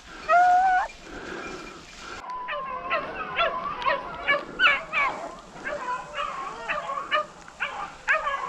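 Pack of rabbit hounds giving tongue on a rabbit's trail: one drawn-out cry at the start, then from about two seconds in many short, overlapping yelping barks in quick succession, the sound of the dogs running a rabbit.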